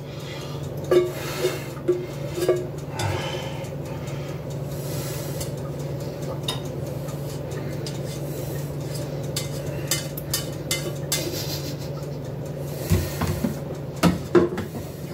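A utensil scraping and knocking inside a cooking pot, working loose macaroni stuck to the bottom: scattered scrapes and clinks, busiest near the start and toward the end, over a steady low hum.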